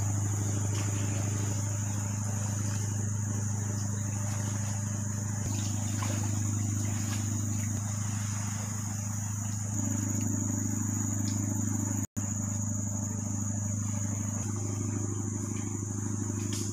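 A small boat engine running steadily at an even low hum, its note filling out a little about ten seconds in. A steady high-pitched insect drone sits over it.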